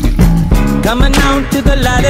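Background music: a pop-rock track with a steady beat and bass.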